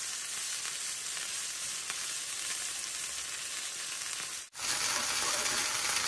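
Chicken breasts sizzling steadily in hot olive oil in a cast iron skillet over medium heat. The sizzle breaks off for a moment about four and a half seconds in, then goes on.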